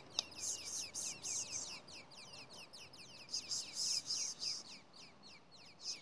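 Nestling birds begging in the nest: thin, high-pitched hissing calls in two bursts, the first starting just after the beginning and the second past the midpoint, over a steady run of rapid falling chirps several times a second. A sharp click sounds just after the start.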